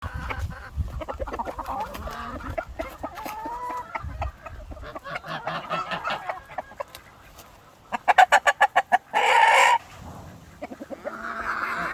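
A rooster and hens clucking. About eight seconds in comes a fast run of about ten loud clucks, followed by a short, harsh squawk.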